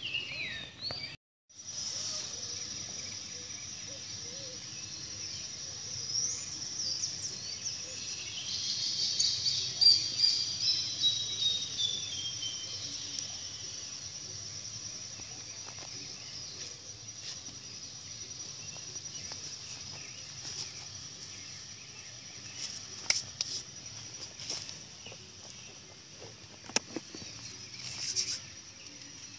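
Creekside ambience: a steady high-pitched insect trill, with birds calling for several seconds in the middle, one giving a falling run of notes. A few sharp clicks near the end.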